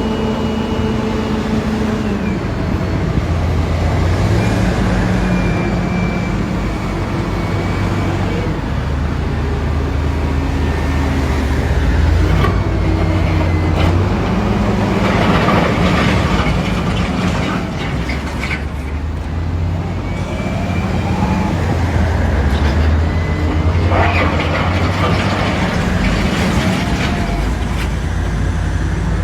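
Heavy diesel construction machinery running under load, the engine pitch stepping up and down as the machines rev and ease off. Louder, rougher stretches come about halfway through and again a few seconds before the end.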